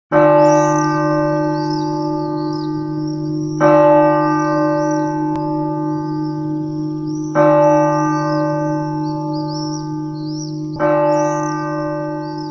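A single large church bell tolling slowly, struck four times about three and a half seconds apart, each strike ringing on and fading until the next.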